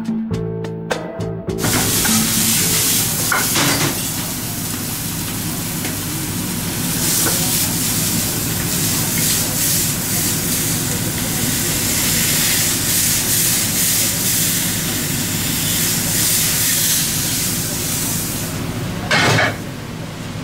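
Food sizzling and frying in pans on a restaurant kitchen stove, a steady hiss with a few short knocks and one brief louder burst near the end.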